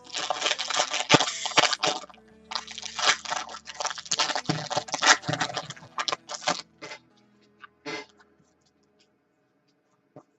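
Trading-card pack being opened by hand: the wrapper crinkles and rustles in quick crackling bursts for about seven seconds, then a few scattered clicks follow.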